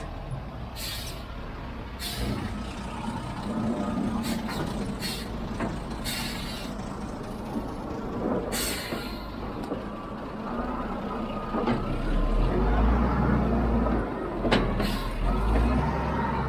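Heavy diesel machinery running steadily, with several short, sharp hisses, and the engine getting louder about three-quarters of the way through.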